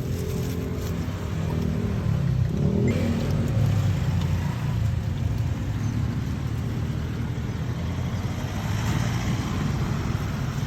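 Road traffic: a vehicle engine running close by, its pitch shifting briefly about three seconds in, over a steady rumble of passing traffic.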